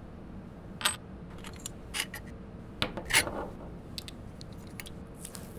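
Light metallic clicks and clinks of a toolbox handle's lock cylinder, nut and key being handled as the nut is loosened and the cylinder taken out, a handful of separate clinks.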